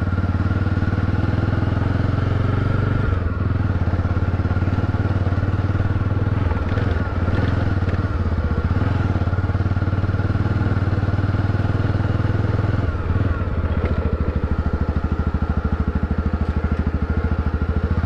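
Motorcycle engine running steadily while the bike rides along a dirt road, heard from on the bike.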